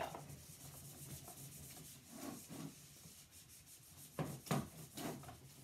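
Whiteboard eraser rubbing across a whiteboard in repeated wiping strokes, with two louder strokes about four seconds in.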